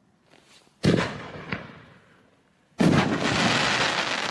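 5-inch aerial firework shells going off. A sharp bang comes about a second in and fades, with a small pop after it. A second loud bang near three seconds in runs straight into dense crackling from crackle stars.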